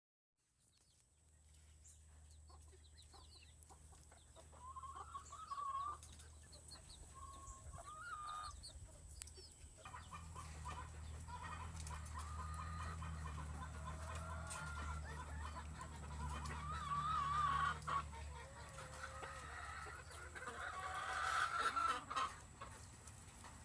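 Chickens clucking and calling, the calls growing busier and more overlapping from about ten seconds in, over a steady low hum.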